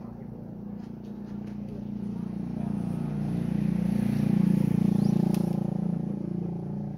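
A vehicle's engine passing close by: a low, steady engine hum grows louder to a peak about four and a half seconds in, then fades away.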